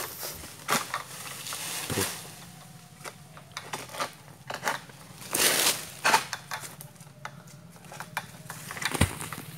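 Long-pole palm sickle (egrek) chopping at oil palm fronds: a series of sharp crunching cracks and knocks, with a longer rustle of fronds about five and a half seconds in.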